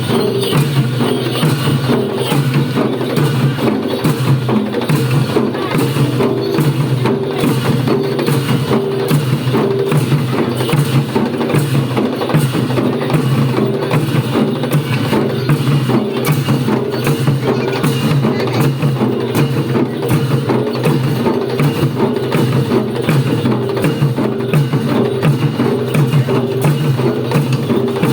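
Traditional Nepali percussion music for the Bhairab dance: drums beaten in a steady, unbroken rhythm with sharp clacking strokes.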